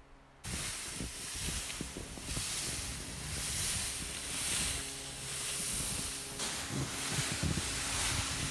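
Plastic pulk sled sliding and scraping over snow as it is towed, a hiss that swells and eases about once a second with the puller's strides, with low crunching underneath.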